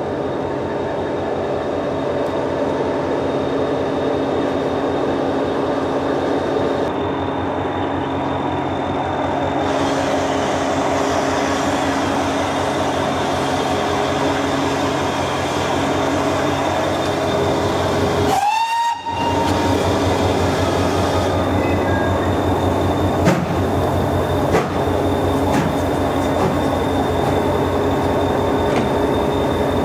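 Train standing at a station platform with an engine idling in a steady hum. About two-thirds of the way through, a short train whistle rises in pitch and then holds for about a second. Two sharp clanks follow a few seconds later.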